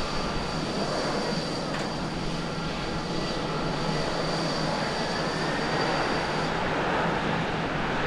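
Jet engine noise of a Boeing 767-300ER rolling out along the runway just after landing: a steady rushing noise that grows slightly louder toward the end.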